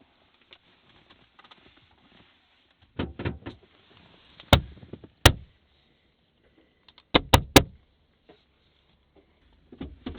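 A series of sharp knocks and clunks: a small cluster about three seconds in, two loud single strikes around four and a half and five seconds, a quick group of three around seven seconds, and a few softer ones near the end.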